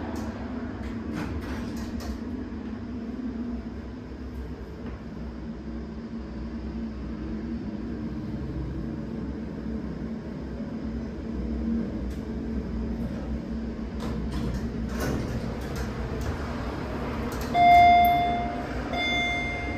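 Hydraulic passenger elevator car in travel, a steady low hum of the running machinery. Near the end the arrival chime sounds twice, a single bright ding about a second and a half apart, the first much louder.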